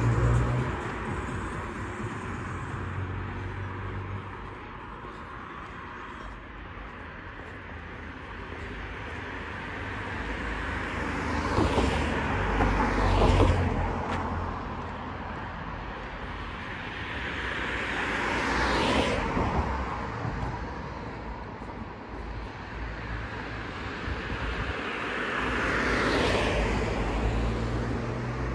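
Road traffic: cars passing by one after another, each swelling up and fading away with a falling pitch, about three passes (just before halfway, about two-thirds in and near the end) over a steady background of traffic.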